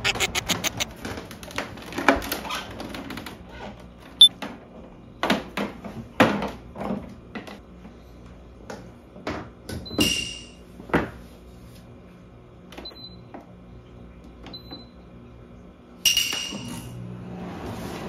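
Portable air conditioner being handled, with knocks and clicks from its casing and drain hose. Its control panel beeps at button presses about ten and sixteen seconds in, and after the second beep its fan starts running steadily.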